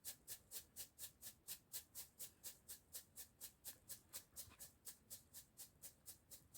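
Faint, evenly repeated high-pitched chirps, about three a second.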